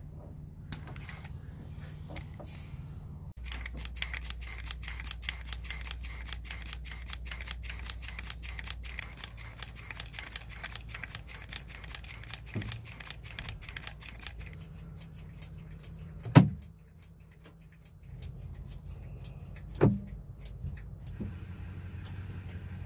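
Rapid, even clicking, about four to five clicks a second, over a low steady hum for about ten seconds. After a short lull come two loud single knocks a few seconds apart.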